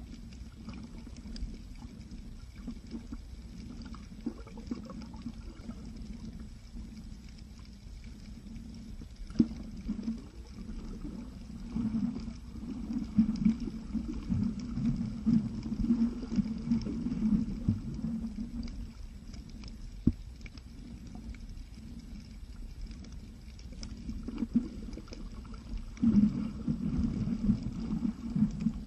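Muffled underwater sound from a camera held under water: a steady low rumble of water movement. It grows louder and more uneven about halfway through and again near the end, with a few sharp clicks.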